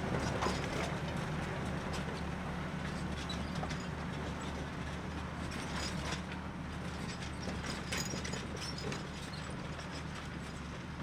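Valtra T214 tractor engine running steadily while pulling a five-furrow plough, with scattered light clicks and rattles over it; the sound slowly fades.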